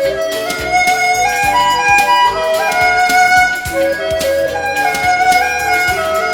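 Instrumental music: a melodic line over a steady beat, with no singing.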